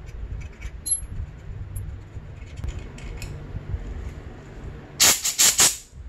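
Light scraping and small clicks of a metal pick cleaning out a bolt hole in an aluminium dirt-bike swingarm. About five seconds in, four or five loud, quick rustling strokes.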